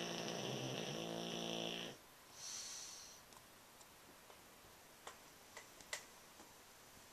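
A sleeping pet snoring: a long, loud pitched snore that stops about two seconds in, followed by a softer hissing breath. A few faint clicks come a few seconds later, then quiet.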